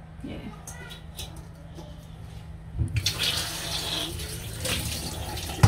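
Kitchen tap turned on about three seconds in, water running steadily into a sink, with a knock just before it starts and a sharp knock right at the end.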